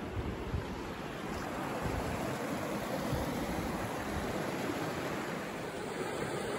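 Steady rush of flowing stream water, with a low rumble of wind buffeting the microphone.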